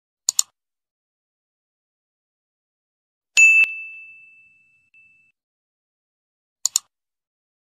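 Animation sound effects: a quick mouse double-click, then a single bright bell ding that rings out for about a second and a half, then another mouse double-click near the end.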